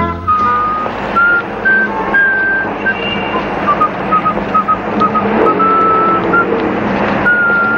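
A person whistling a simple tune in short notes over steady street traffic noise.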